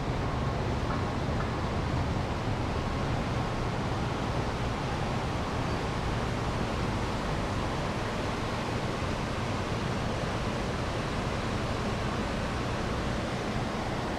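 Steady rushing noise of a bicycle ride, wind buffeting the microphone over road noise, with no distinct events.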